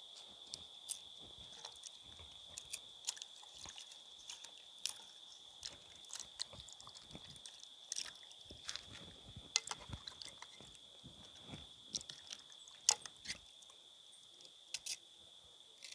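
Kitchen knife cutting and peeling green bananas, with the bananas handled in a pot of water: irregular sharp clicks, scrapes and small water sounds. Crickets chirr steadily underneath.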